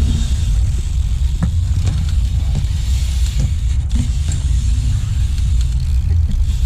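A steady, loud low rumble, with a few faint knocks.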